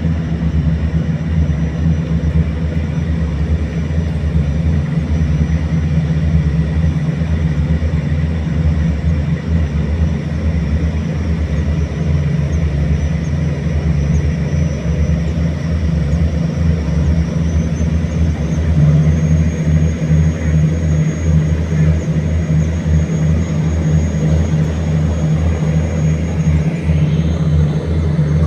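Boat engine running steadily, a continuous low drone.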